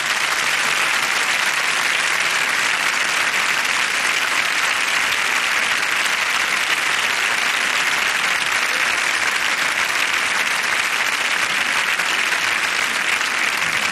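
A large audience applauding steadily without a break.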